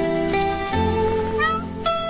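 Gentle instrumental background music of held string notes that change every half second or so, with a short upward slide about one and a half seconds in.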